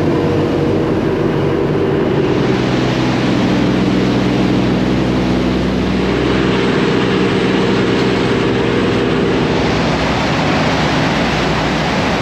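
Ferry's engines running at cruising speed: a loud, steady drone with several held low tones, over the rush of churning wake water.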